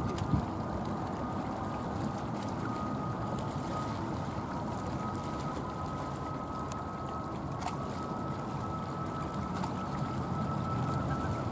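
Jet airliner engines running at a distance: a steady rushing roar with a thin whine that slowly rises in pitch.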